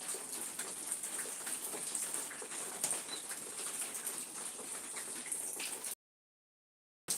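Outdoor ambience: a few faint, short bird chirps over a steady high hiss full of tiny crackles. The sound cuts out completely about six seconds in and returns about a second later.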